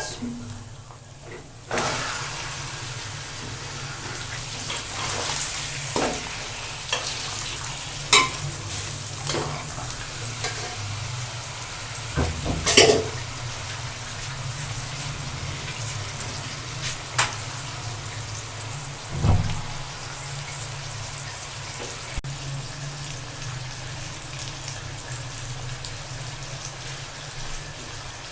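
Chicken pieces frying in hot oil with browned onions, a steady sizzle that starts suddenly about two seconds in. The sizzle is broken by several sharp knocks of the stirring spoon against the pot.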